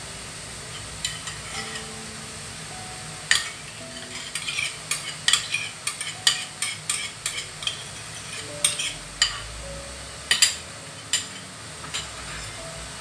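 Spatula stirring and folding thick sponge-cake batter in a metal mixing bowl, with an irregular run of sharp clicks and taps as a spoon scrapes out a small ceramic bowl and utensils knock against the bowls. The batter is being folded after the oil goes in.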